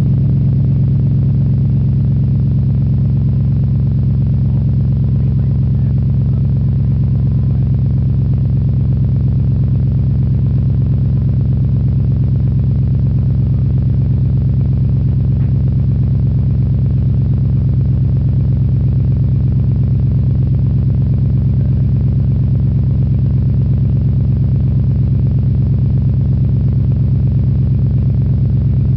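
Carbureted engine idling steadily soon after a cold start: a constant low hum with an even pulse that does not change.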